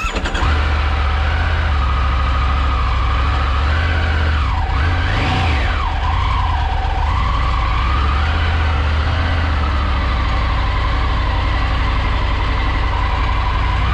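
Side-by-side off-road vehicle engine running steadily, with a whine that wavers up and down in pitch. About five seconds in, a brief rev sweeps up and back down.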